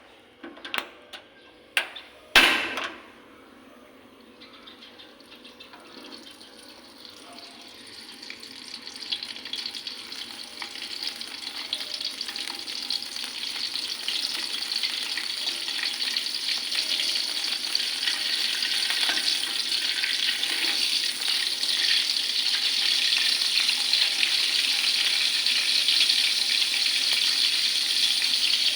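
Fish frying in oil in a pan: a few sharp knocks near the start, then crackling sizzle that grows steadily louder and settles into a steady fry.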